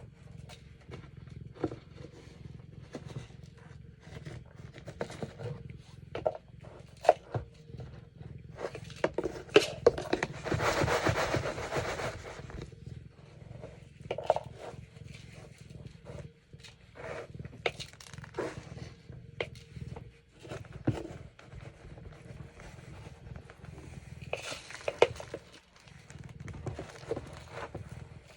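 Cat litter being scooped: scattered clicks and knocks of the scoop in the litter box, with a longer scraping, rustling stretch about ten seconds in and a shorter one near the end.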